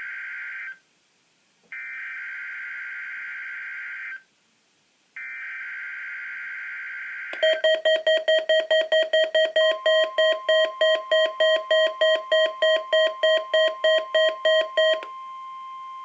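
NOAA Weather Radio Required Weekly Test received on a Midland WR-100 weather radio. First come the coded SAME header data bursts: harsh, buzzy digital tones about two and a half seconds each with one-second gaps, the tail of one and then two more. Next the receiver's alarm beeps rapidly, about three or four beeps a second, for some seven seconds, and a steady single-pitch alarm tone starts under the beeping and holds on after it stops.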